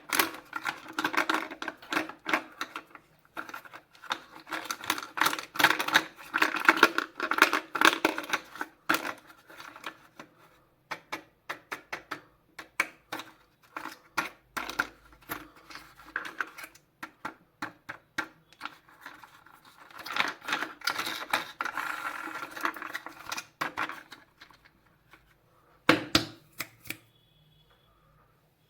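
Rapid clicking and rattling of hard plastic toys and packaging being handled. The clicks come in dense runs with sparser single clicks between, and a sharper knock about 26 seconds in.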